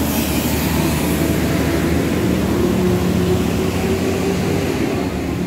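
Large intercity coach's diesel engine running as the bus moves close past, a loud, steady low drone with engine hum.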